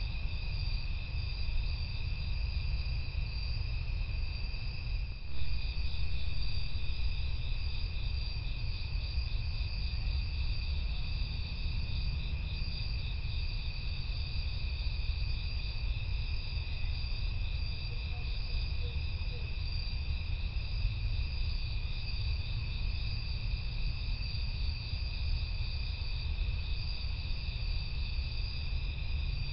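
Night chorus of crickets and other insects: steady, pulsing trills at several pitches over a constant low rumble, with a single brief knock about five seconds in.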